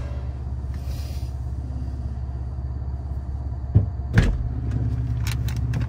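Minivan engine idling, a steady low hum heard from inside the cabin. About four seconds in come two sharp knocks close together, then a few light clicks near the end.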